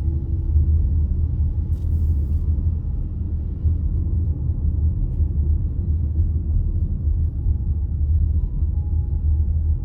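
Low, steady rumble of a car being driven: road and engine noise.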